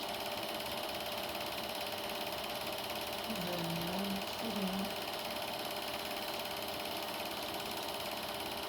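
Super 8 film projector running: a steady, even mechanical clatter from the film transport. A faint low voice murmurs briefly about three and a half seconds in.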